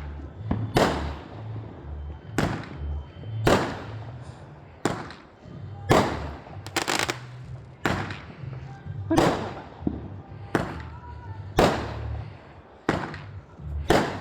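Fireworks bursting overhead in a steady series of sharp bangs, about one a second, with a low rumble underneath.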